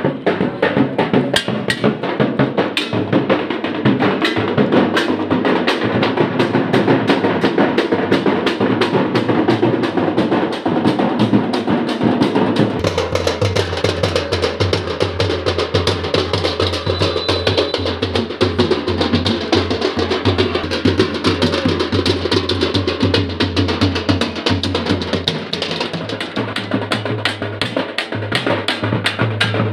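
Fast, continuous drumming on a metal-shelled double-headed drum beaten with sticks, loud and unbroken. A low steady hum runs underneath through the middle part.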